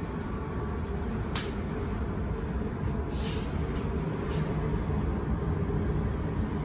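Steady low rumble of a moving vehicle, with a few short hisses a little past the middle.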